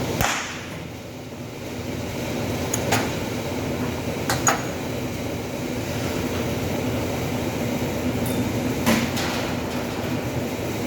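A few sharp metallic knocks on sheet-metal panel work, irregularly spaced with a quick double knock near the middle, over a steady workshop hum.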